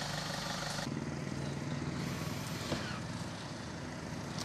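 Steady roadside background noise with a vehicle engine running at idle. The sound shifts abruptly about a second in.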